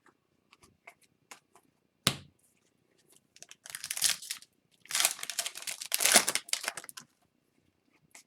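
A sharp knock, then the wrapper of a hockey card pack being torn open and crinkled in two long stretches of rustling.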